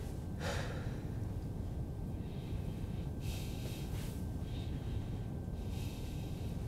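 Steady low rumble of a train carriage's background ambience, with three short soft hissing sounds, like breaths or clothing rustle, about half a second, three and a half seconds and six seconds in.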